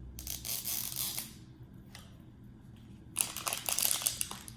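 Packaging wrapper crinkling and rustling as it is handled and pulled open, in two spells of about a second each, the second starting about three seconds in.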